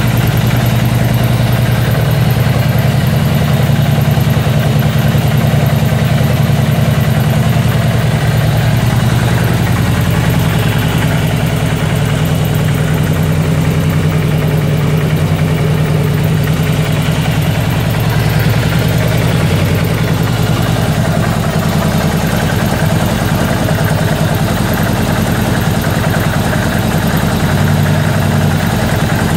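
Harley-Davidson 103 cubic-inch V-twin motorcycle engine idling steadily in a trike chassis, an even low-pitched running sound with no revving.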